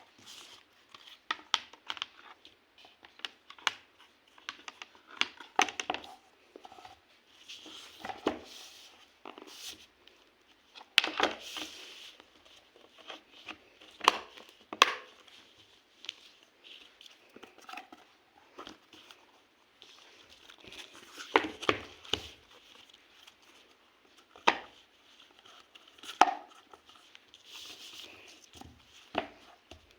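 Handling of packaging and a tablet during unboxing: crinkling and rustling plastic wrap or paper, with irregular taps and clicks.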